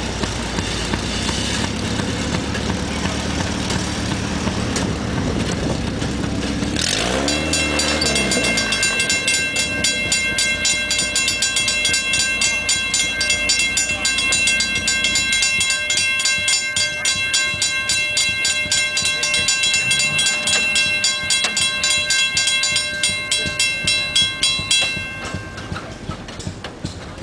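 A rail speeder's small engine idling. From about eight seconds in, a railroad grade-crossing bell rings in rapid, even strikes as the crossing signals activate. The bell stops near the end, once the gates are down.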